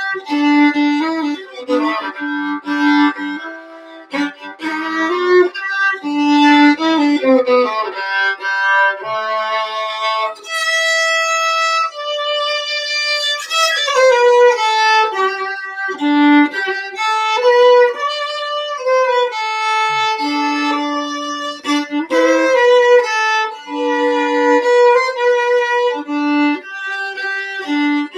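Solo fiddle playing a tune, bowed note by note, with a long held note about halfway through.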